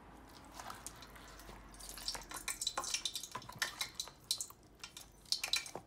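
Hot frying oil crackling and popping in quick, irregular bursts from about two seconds in, spitting because a little of the watery marinade splashed into it; wet fish pieces are squelched around a plastic bowl by hand.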